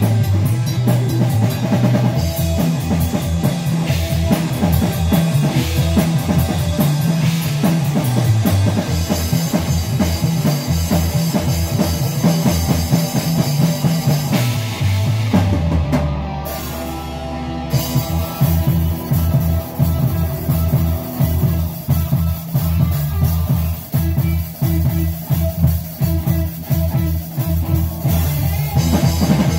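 Live rock band playing: electric bass, electric guitar and drum kit. About sixteen seconds in, the drums stop for a second and a half under a held low note, then the full band comes back in.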